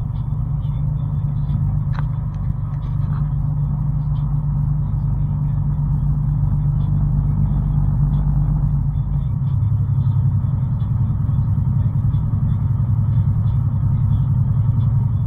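Steady low rumble of a vehicle driving at highway speed, engine and road noise heard from inside the cab. About nine seconds in the rumble shifts to a slightly higher, narrower drone. There is a single brief click about two seconds in.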